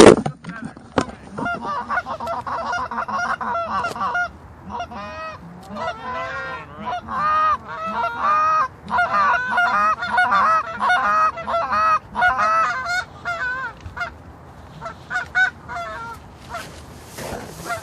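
Geese honking, many short honks overlapping as from a flock, thickest in the middle and thinning out toward the end. A sharp, loud knock comes right at the start.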